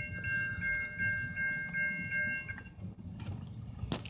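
Railroad crossing warning bell ringing at a quick, even rate, then stopping about two and a half seconds in.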